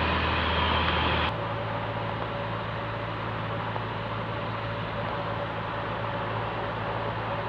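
Single piston engine of a light aircraft running steadily, heard inside the cabin. About a second in, its note changes suddenly and it becomes quieter, as power comes back on the approach to land.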